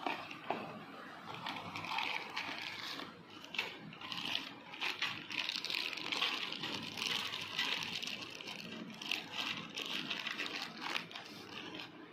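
Crinkling and rustling of a small plastic packet being handled and opened, with irregular light clicks throughout.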